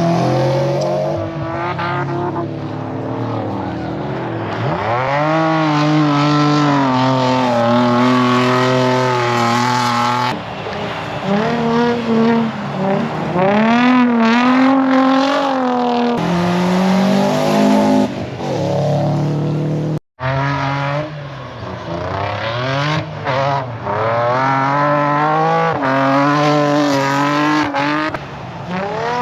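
A race car's engine revving hard, its pitch climbing and dropping again and again as the throttle is worked through the runs. The sound breaks off abruptly about two-thirds of the way in, and the revving picks up again straight after.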